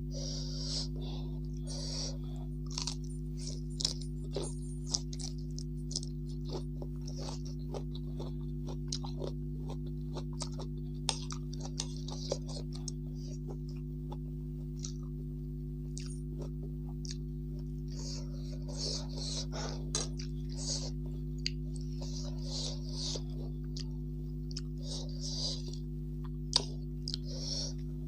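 Close-up chewing of rice and crunchy pickled cabbage leaves, in repeated bursts, with frequent sharp clicks. A steady low hum lies underneath.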